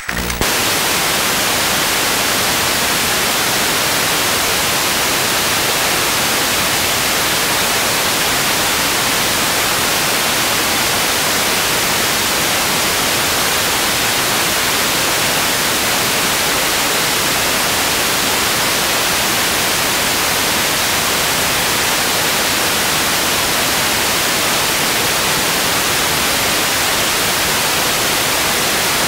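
Steady loud static hiss from a wireless camera receiver with no signal, cutting in abruptly as the camera's transmitter goes off.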